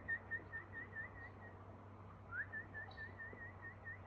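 A person whistling a warbling call: quick wavy notes, about five a second, in two runs. The second run begins with an upward slide about two seconds in.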